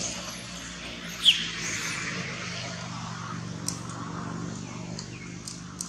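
Outdoor ambience with a steady low engine-like hum. A single short, high, falling squeak comes about a second in, and a few faint clicks follow later.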